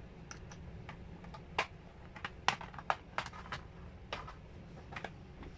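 About a dozen irregular light clicks and taps from a laptop's plastic casing and small parts being handled during disassembly.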